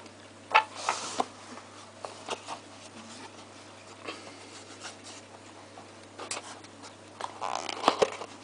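Scattered small clicks, taps and scratchy rustles, loudest about half a second in and again near the end, over a steady low hum.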